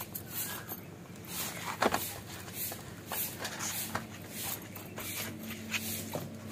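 Dough being kneaded by hand in a steel bowl: repeated soft pressing and squelching strokes about once or twice a second, with one sharper knock about two seconds in.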